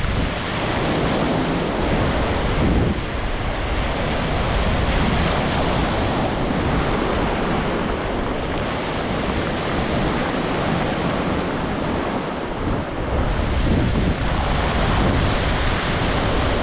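Ocean waves breaking and washing on a beach, a continuous surf noise that swells and eases, with wind buffeting the microphone.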